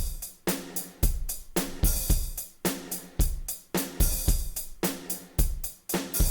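Sampled Ketron SD90 drum kit playing a quantized beat: kick, snare, hi-hat and cymbal hits in a steady rhythm.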